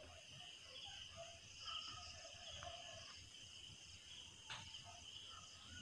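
Faint, steady high trilling of night insects, with one faint click a little past the middle.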